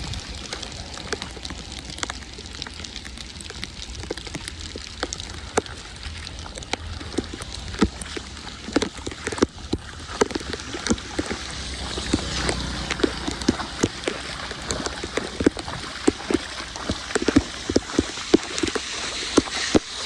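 Rain falling on flooded ground, with many separate drops ticking and splatting irregularly over a steady wash of water noise and a low rumble; the drop hits grow thicker about halfway through.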